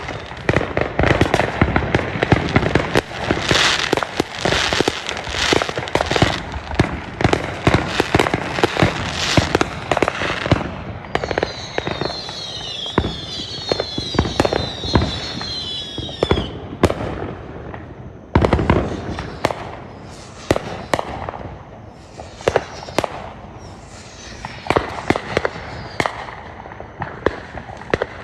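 Fireworks going off: a dense run of bangs and crackling for about ten seconds, then several whistles falling in pitch together for about five seconds, then more scattered bangs.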